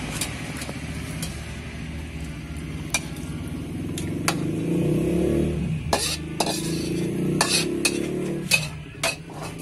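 A metal spatula and ladle scrape and clink against a steel wok as saucy seblak is scooped out into a bowl. There are sharp clinks at uneven intervals, more of them in the second half, over a steady low rumble.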